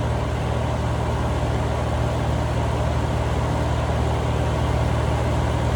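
Steady low mechanical hum of an air-conditioning condensing unit running, unchanged throughout.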